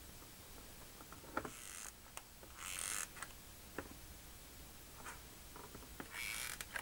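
Handling noise from hands working cables and parts inside a plastic power-pack case: scattered small clicks and taps, and two brief rustling scrapes in the first three seconds.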